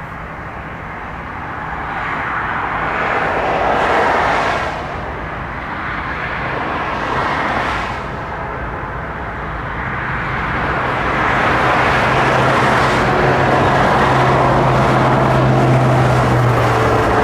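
Two passing swells of vehicle noise, then from about ten seconds in a train approaching: a steady low engine drone growing louder over a broad rumble.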